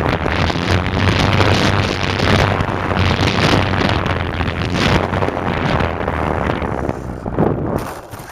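Heavy wind rushing and buffeting over the microphone of a camera mounted on a Parkzone F4U Corsair radio-control plane in flight, in gusty swells over the steady low drone of its electric motor and propeller. The sound falls away sharply near the end.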